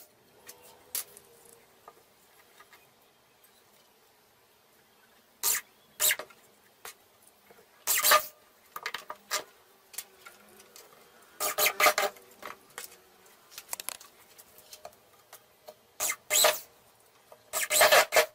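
Corded electric drill running in short bursts, each under a second, as it bores holes in a plywood board, with small knocks and clicks between the bursts.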